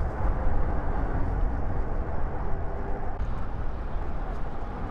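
Steady low rumble of wind on the microphone and road noise while riding an electric bike.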